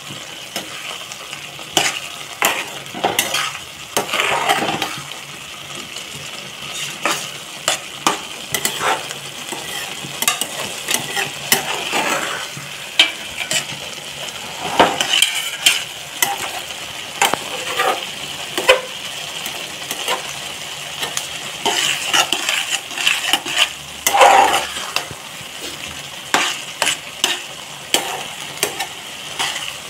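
Metal spatula stirring and scraping vermicelli upma in a steel pan, with frequent irregular clinks against the pan over a steady sizzle from the cooking dish.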